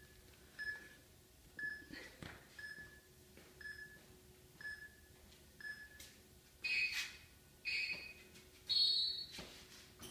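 Electronic beeps about once a second, typical of a workout interval timer counting down: seven short soft beeps, then three longer, louder beeps, the last one higher in pitch.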